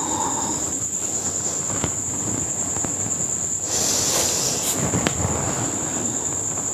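Crickets trilling in one steady high note, over soft scuffs and rustles, with a louder rustle about four seconds in.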